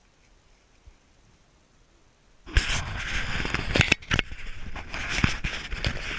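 Quiet for about the first two and a half seconds, then sudden loud rustling and crackling with sharp clicks as the camera is swung around among dry cornstalks. Stalks, dry leaves and clothing are brushing and rubbing against the microphone.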